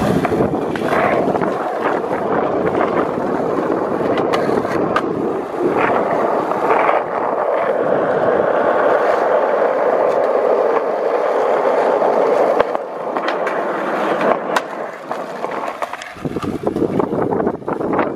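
Skateboard wheels rolling over asphalt: a steady rolling rumble, loudest in the middle, with scattered small clicks and knocks.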